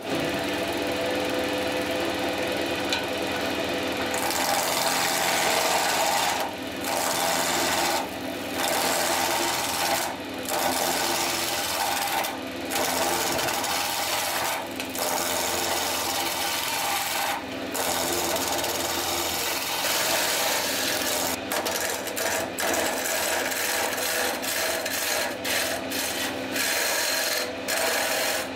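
Small wood lathe running while a turning tool cuts a spinning wooden blank: a continuous rough shaving hiss over the motor's steady hum. The cutting breaks off briefly now and then as the tool comes away, more often near the end.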